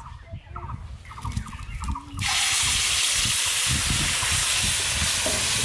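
Onion and garlic paste with ground spices tipped into hot oil in a large karahi, breaking into a loud, steady sizzle about two seconds in.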